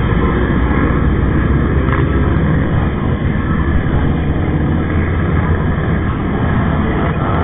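Steady, loud engine rumble of motorcycles riding together in a pack, heard from a camera on one of the moving bikes, mixed with wind and road noise on the microphone.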